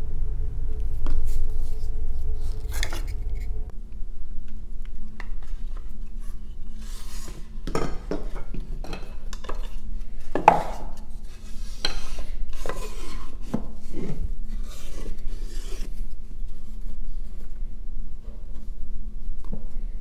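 Wooden box pieces being handled and fitted together by hand: a run of light knocks and clicks with wood rubbing against wood, over a steady low background hum.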